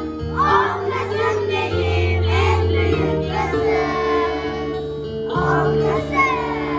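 A children's song playing: young voices singing over a music backing track with long held bass notes.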